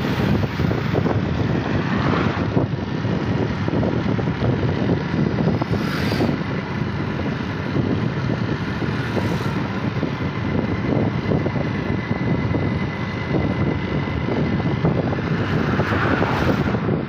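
Wind rushing over the microphone on a moving motorbike, with the bike's engine running underneath. A passing vehicle swells up briefly about two seconds in and again near the end, when a car goes by close.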